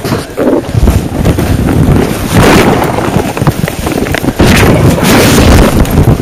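Loud, irregular buffeting of wind and handling noise on a jostled camera microphone as its carrier runs through brush, the low-pitched noise swelling and dropping with each jolt.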